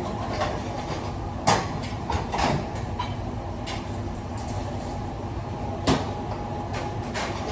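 Busy commercial kitchen: a steady hum of kitchen equipment, broken by clatter and sharp knocks of utensils, pans or doors, the loudest about one and a half seconds in and again about six seconds in.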